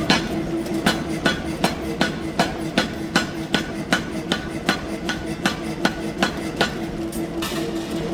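Pneumatic power hammer striking a steel billet in a steady rhythm, about two and a half blows a second, over a constant machine hum.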